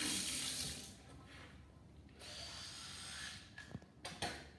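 Electric toothbrush buzzing while someone brushes their teeth, in two stretches with a short lull between, followed by a few light taps near the end.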